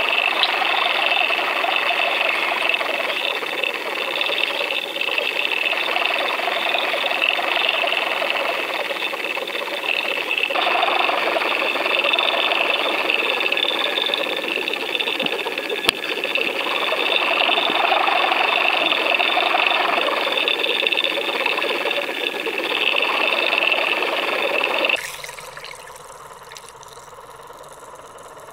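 Underwater sound of a camera towed behind a boat at about 8 knots: a steady rush of water past the housing with the boat's engine and propeller whine carried through the water. The noise drops abruptly to a much quieter hiss near the end.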